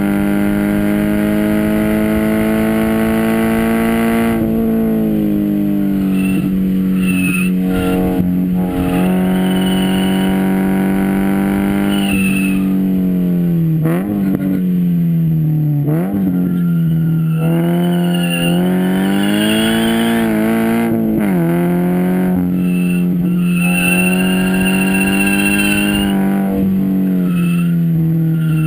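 2013 Scion FR-S's 2.0-litre flat-four running hard on track through a Nameless straight-through track pipe and overpipe/downpipe, a loud steady exhaust note that climbs slowly and several times dips sharply and comes back up in pitch. Thin high tyre squeal comes and goes over it.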